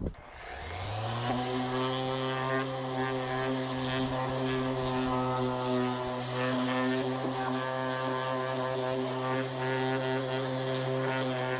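A motor starting up, rising in pitch for about a second, then running steadily at one pitch.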